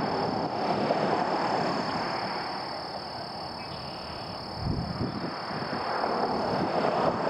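Twin rear-mounted turbofan engines of a business jet on landing approach, a steady rushing drone with a steady high whine above it. A brief low rumble comes about five seconds in.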